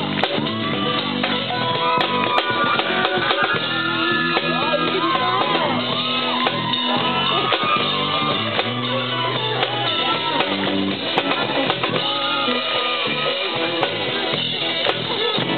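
Live rock band playing, with electric guitars over a drum kit.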